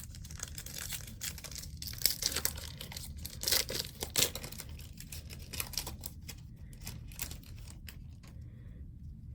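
A hockey card pack wrapper being torn open and crinkled, with cards rustling as they are handled; the crackling dies down near the end.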